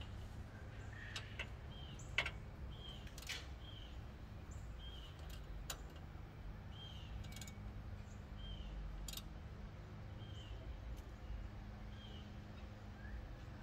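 A few sharp metallic clicks and knocks from hand work at a pickup's rear brake, the loudest about two seconds in. Behind them a bird repeats a short chirp about once a second.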